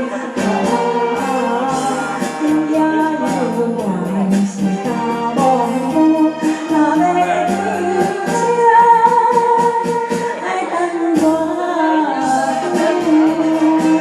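Backing music of a Taiwanese-language ballad with a woman singing along, her voice hoarse and strained.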